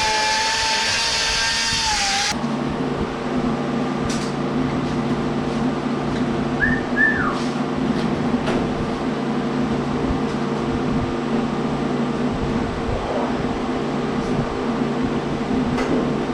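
Guitar music for about the first two seconds, then an abrupt cut to an electric power tool running steadily with a constant motor hum. Two brief squeaks come about seven seconds in.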